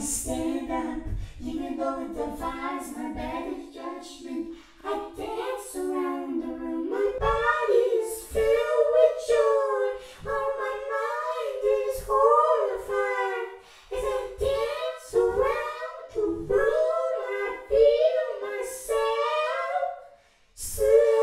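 A single unaccompanied high voice singing long, wavering held notes with short breaks between them. About seven seconds in it moves up to a higher pitch and stays there.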